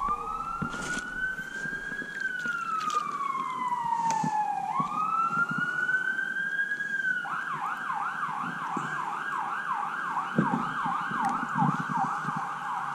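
A siren sounding: two slow rising-and-falling wails, then, about seven seconds in, a switch to a fast yelp of about three sweeps a second.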